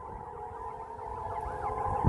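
Distant industrial warning siren sounding during a siren test: steady high tones with a fast repeating warble, about three rises a second, under wind buffeting on the microphone.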